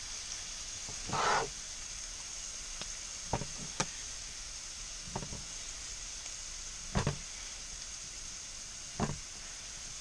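Knife chopping boiled sausage into cubes on a wooden cutting board, a sharp knock every second or two. Under it, a steady hiss of onions frying in oil in a pan on a camping gas stove.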